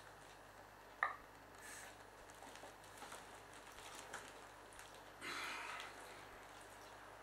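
Vinyl inflatable clownfish toy being blown up by mouth: faint crinkling of the plastic, a sharp squeak about a second in, and a breathy rush of air at the valve about five seconds in.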